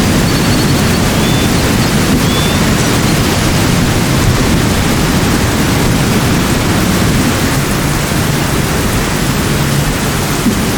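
A steady, loud rushing noise, heaviest in the low range, with a few faint high bird chirps in the first two or three seconds.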